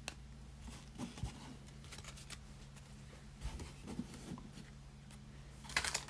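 Faint clicks and slides of basketball trading cards being flipped through and laid down on a mat, over a low steady hum. A louder crinkly rustle comes near the end, as a foil card pack is handled.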